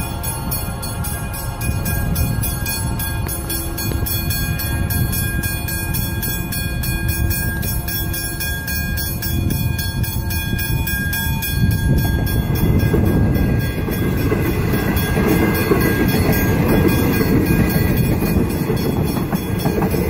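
Level-crossing warning bells ringing rapidly and steadily while the boom gates are down. About twelve seconds in, the rumble of an approaching suburban electric train builds up and grows loud as the train passes close by.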